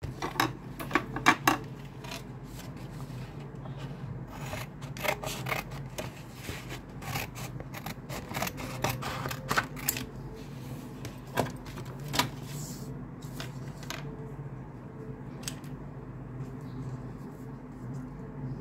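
Scissors cutting through a sheet of paper: a string of short, crisp snips, thick in the first half and thinning out after about twelve seconds. A steady low hum runs underneath.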